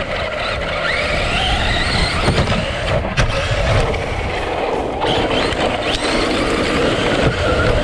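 Traxxas electric RC car's motor whining as it is driven, its pitch rising as it speeds up twice, over a steady low rumble of tyres and wind.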